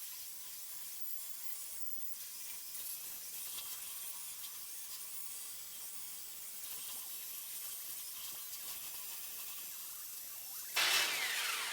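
Power tool abrading old body filler off a car fender: a steady gritty hiss. It gets louder near the end with a falling pitch, then stops.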